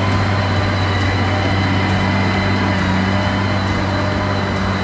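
Heavy diesel engine running steadily at constant speed, a low, even hum that does not change.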